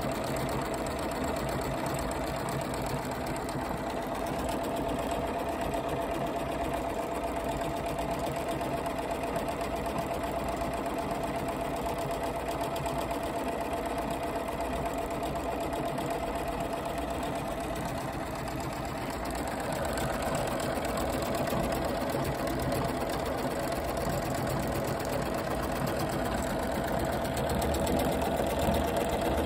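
Bernina 990 sewing machine stitching a jumbo decorative floral stitch: motor and needle running steadily with a fast even rhythm while the feed moves the fabric side to side as well as forward and back. It gets a little louder about two-thirds of the way through.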